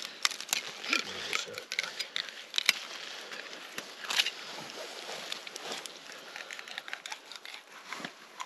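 Irregular small scrapes, crunches and clicks of knives and hands filleting and skinning trout on packed snow, with rustling of winter jackets.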